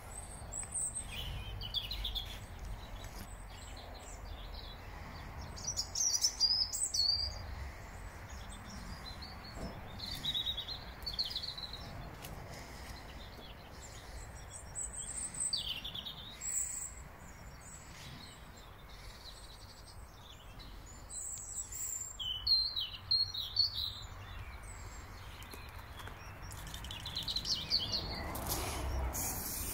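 Garden birds singing, with scattered short chirps and song phrases throughout over a low outdoor background. There is a short stretch of rustling near the end.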